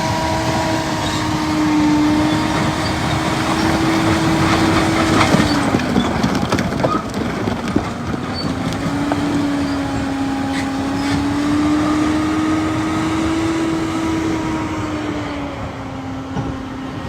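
Heavy machinery running: a steady engine drone whose pitch drifts slowly up and down, with a spell of clanks and rattles about a third of the way through.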